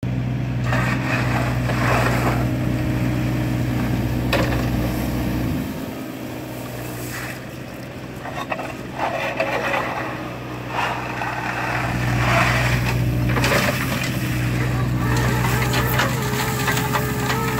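Kubota mini excavator's diesel engine running steadily while a rotating-drum riddling bucket tumbles wood chips, with bursts of chips rattling and pouring through the mesh drum every few seconds. The engine note dips briefly about six seconds in, and a wavering whine sets in near the end.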